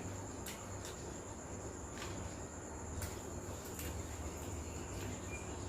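Faint steady high-pitched trill of crickets, with a few soft clicks over a low hum.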